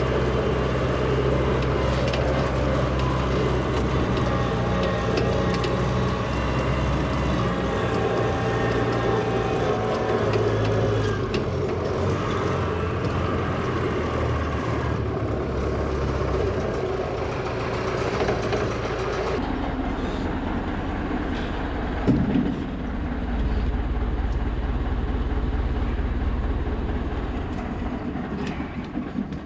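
Old 1963 Volvo LM225 wheel loader's engine running, its speed changing several times, with a single sharp clunk about 22 seconds in. The sound fades away at the very end.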